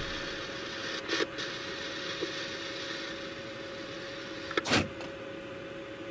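Steady hiss and a faint steady hum inside a vehicle's cabin, broken by a short scrape about a second in and a louder sharp noise near the five-second mark.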